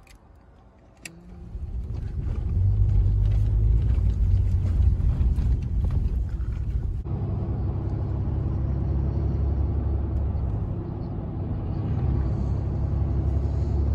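Pickup truck driving: a steady low rumble of engine and road noise builds up after a click about a second in. The sound changes abruptly about seven seconds in.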